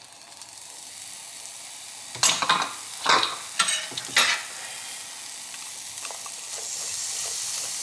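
Chopped onions sizzling in a little oil in a non-stick frying pan, the sizzle growing louder toward the end. A metal spoon scrapes and stirs through them in four quick strokes a couple of seconds in.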